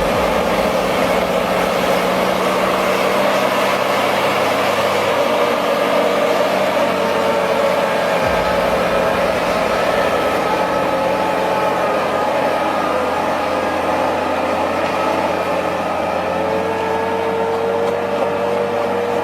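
Heavy vehicle engine running steadily, its pitch shifting slightly a couple of times.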